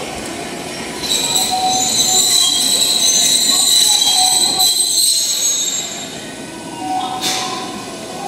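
A Toyama Chitetsu city tram pulling into the stop, its wheels squealing on the rails in a loud, steady, high-pitched squeal that starts about a second in and fades out about two seconds before the end. A short hiss follows near the end.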